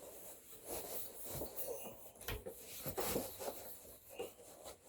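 Handling noise from unpacking a hard-shell guitar case: irregular rubbing and scraping with a few light knocks.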